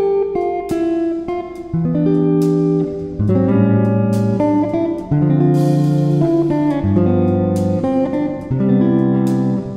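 Background music: a guitar playing plucked notes and chords at an even pace.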